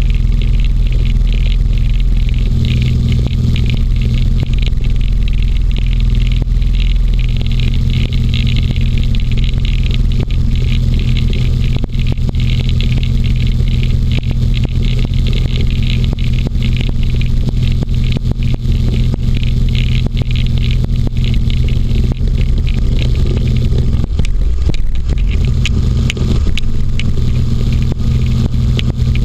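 Inflatable hovercraft's engine and caged fan running steadily at cruising speed over snow, with a steady hiss and scraping from the skirt sliding on the snow. The low engine note eases briefly near the end, then picks up again.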